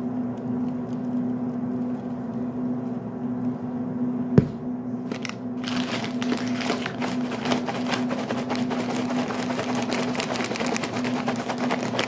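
Popped microwave popcorn being shaken in its paper bag: a dense crackling rustle that starts about halfway through, shortly after a single sharp click. A steady low hum runs underneath.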